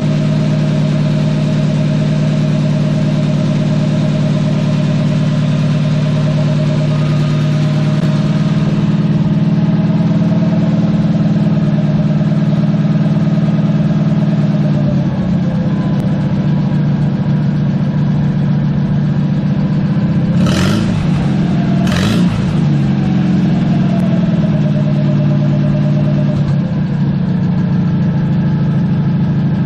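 Farmall 230 tractor's four-cylinder gasoline engine running steadily on its first run after a front main seal replacement. Its speed shifts a few times, and it is revved quickly twice about two-thirds of the way through before settling back.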